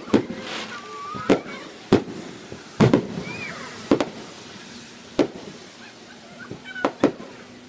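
Aerial firework shells bursting in a display: about eight sharp bangs at irregular intervals.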